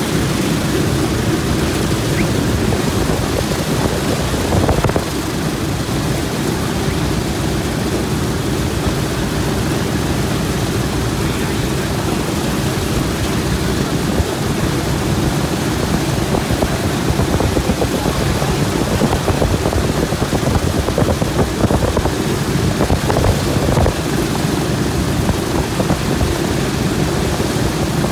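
Boeing B-17 Flying Fortress's Wright R-1820 Cyclone nine-cylinder radial engines running at idle, a steady, loud, rough rumble with propeller wash.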